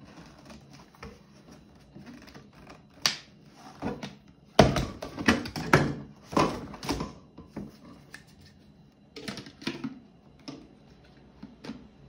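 Hands handling plastic parts and packaging during unpacking: irregular clicks, knocks and rustles, busiest about halfway through. No motor is running.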